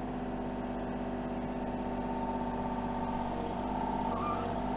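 Kubota mini excavator's diesel engine running steadily under hydraulic work, gradually getting a little louder, with a brief higher whine about four seconds in.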